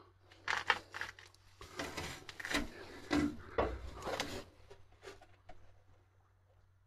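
Hand tools being handled, with sharp clicks and rattling as a socket is fitted onto the positive-terminal nut of a Piaggio Ape 50's starter motor. The clatter is busiest for the first four seconds or so, then dies down to a few single clicks.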